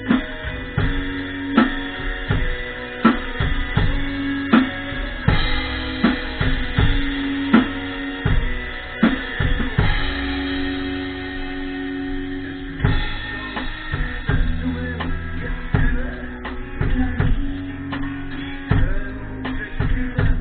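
Rock music with a drum kit up front: kick and snare hits land on a steady beat over sustained guitar and bass notes.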